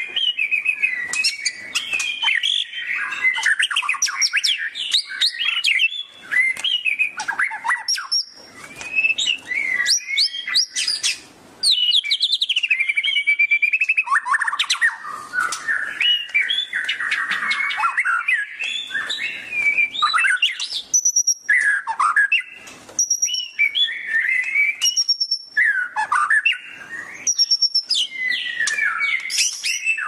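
White-rumped shama in full song: a long, varied run of rich whistles, rising and falling glides and rapid chattering trills, broken by short pauses between phrases. In the second half, a short high note recurs between phrases.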